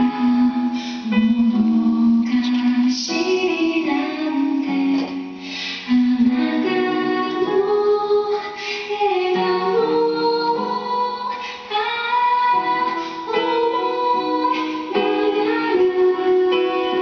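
Background song: a woman singing a slow melody over instrumental accompaniment.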